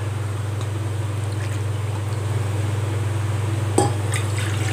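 Water poured from a plastic bowl into a nonstick pan, with a faint splashing trickle, over a steady low hum. A short knock near the end.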